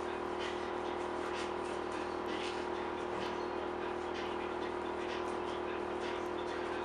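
A steady workshop hum with several fixed tones, under soft scratchy strokes of a brush working resin into fibreglass mat, roughly once a second.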